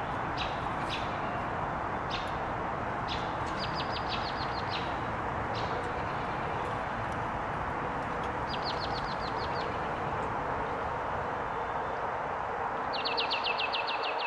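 Small songbirds chirping, with single high chips and three short, rapid trills, over a steady hiss of rain.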